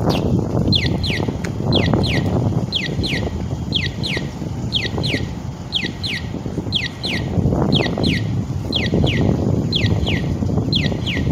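Pairs of short, high chirps, each falling in pitch, repeating steadily about once every two-thirds of a second, over a low wind rumble on the microphone.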